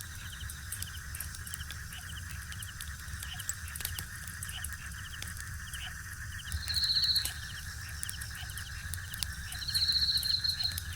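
Outdoor nature ambience by a river. A steady chorus of small creatures with short chirps repeating about once a second, and two louder buzzy trills, one about six and a half seconds in and one near the end. A low steady rush of flowing water lies underneath.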